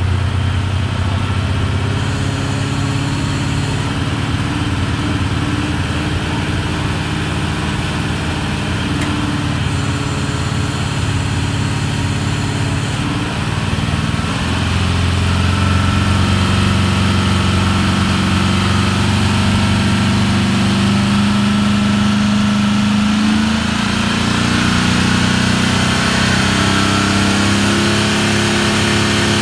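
Diesel engine of an Oliver pulling tractor running at a steady fast idle through an upright open exhaust stack. It picks up speed and gets a little louder about halfway through.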